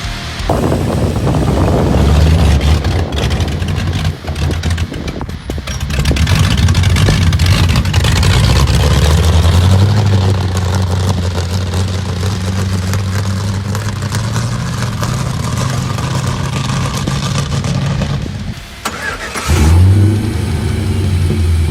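Car engine starting and running: it catches about half a second in, revs up around six seconds, then runs steadily. Near the end it cuts out briefly and is started again, the revs rising as it catches.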